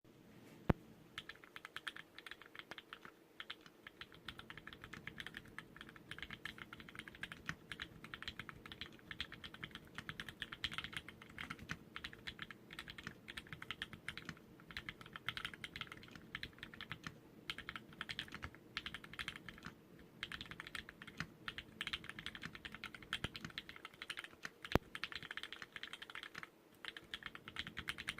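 Typing on a Dolphin Linger mechanical keyboard with Cherry MX Black linear switches on 57g springs and an aluminium plate: rapid, continuous keystrokes in runs broken by short pauses, with a single sharper clack near the start and another about three-quarters through.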